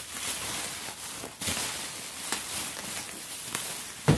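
Bubble wrap and plastic packaging rustling and crinkling as they are handled, with one sharp knock near the end.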